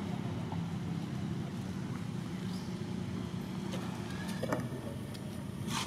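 A motor running steadily with a low, even hum. A few light clicks come near the end.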